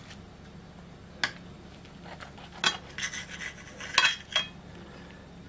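Table knife and fork cutting through a rolled omelette on a ceramic plate: a few light scattered clicks and scrapes of metal against the plate, the sharpest about four seconds in.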